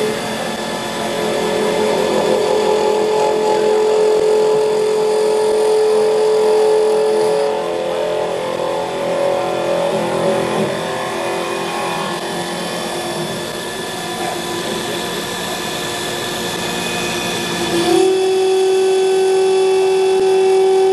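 EagleTec EA-TL1530B CNC wood lathe running a cut, its motors giving a steady whine over the hiss of the tool cutting into the inside of a spinning wooden pen container blank. About eighteen seconds in, the whine steps to a different steady pitch.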